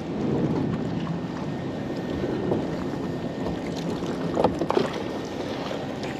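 Wind on the microphone over choppy water while a magnet-fishing rope is hauled in. About four and a half seconds in come a few short splashes and knocks as the magnet breaks the surface, with water and weed streaming off it.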